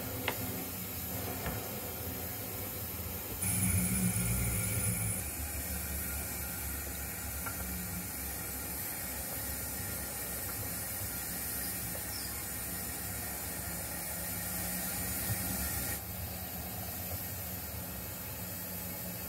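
Steady steam hiss from a model steam tank locomotive's sound, with a louder rush of steam and a low rumble about three and a half seconds in that lasts a second or two.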